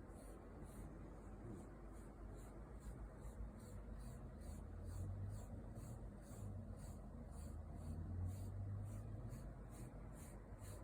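A brush stroking through a Shiba Inu's coat, a steady scratchy rhythm of about three strokes a second. A low drawn-out hum sounds from about four to nine seconds in.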